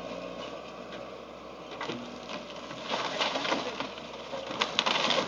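Wooden house framing cracking and splintering as the house is torn down, with scattered snaps and crunches that grow louder and busier about three seconds in.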